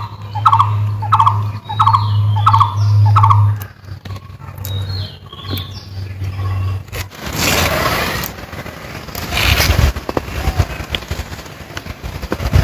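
Domestic fowl calling in a run of short, evenly spaced calls over a steady low hum for the first few seconds. Later come rough, noisy handling sounds of hands working soft roasted mango flesh in water and on a plate.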